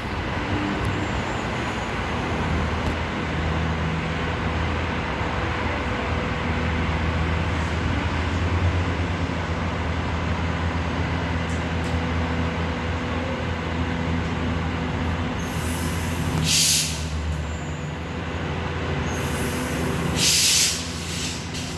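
Perth suburban electric multiple-unit train with a steady low electric hum from its drive equipment, broken by two loud air hisses about two-thirds of the way through and near the end. The train is making a false start, twice.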